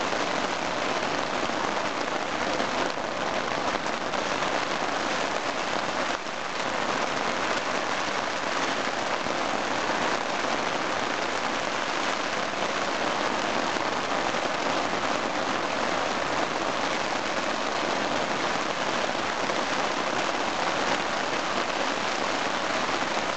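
Steady rain falling on the fabric of a small tent, heard from inside the tent.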